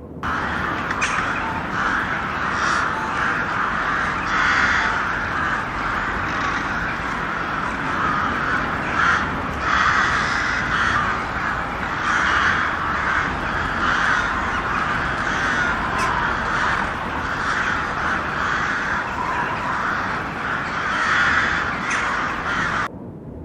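A large flock of birds calling all at once: many overlapping calls merge into a dense, continuous din. It starts suddenly and cuts off abruptly shortly before the end.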